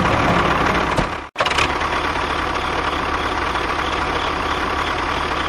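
An engine idling steadily, cut off for a moment by a brief drop-out about a second in, then running on evenly.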